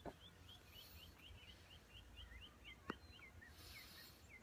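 A bird calling a rapid, even series of short slurred chirps, about four a second, faint against quiet open-air background; a single faint click about three seconds in.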